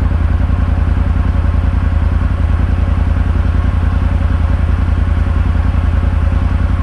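Can-Am Maverick side-by-side's engine idling steadily, with an even low pulse.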